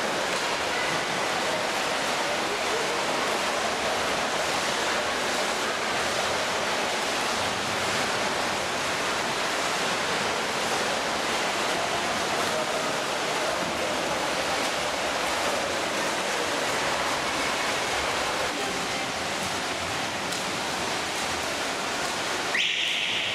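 Swimmers splashing through freestyle strokes in an indoor pool, a steady wash of water noise that changes abruptly near the end.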